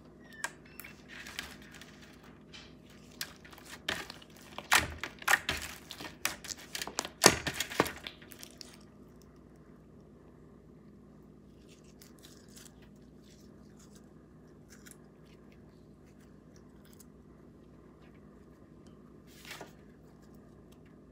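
Pink watermelon slime being poked, squeezed and stretched by hand on a metal baking sheet: a dense run of crackling, squelching pops over the first eight seconds or so, with one more short crackle near the end.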